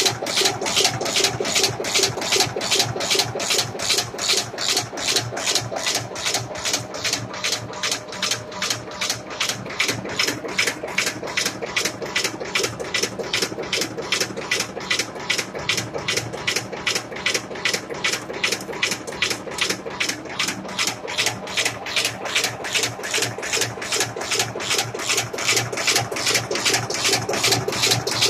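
Drywall screw making machine running, a rapid, even beat of strokes as it forms screws.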